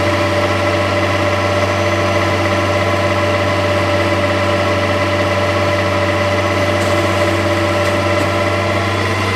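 Tractor-powered PTO manure pump running steadily at constant speed while pumping liquid manure out of the pit, the engine and pump drive holding one even note throughout.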